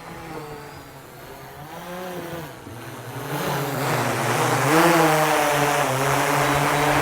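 Camera drone's propellers whirring, several rotors humming at slightly different, shifting pitches; it grows louder and adds a rushing hiss about halfway in as the drone comes close.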